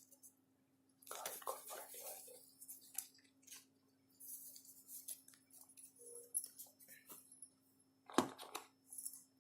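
Faint handling noises of phone accessories and packaging being taken out of a box: scattered light clicks, taps and rustles, with a sharper knock about eight seconds in. A faint steady hum runs underneath.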